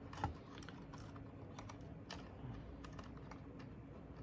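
Faint, irregular small clicks and taps of a small hand tool and fingers working at a plastic instant-camera body, with one sharper click about a quarter second in.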